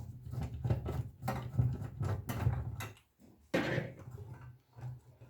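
Irregular clicks, knocks and small metallic rattles as screws are worked out of a receiver's metal shield and the parts are handled, over a steady low hum.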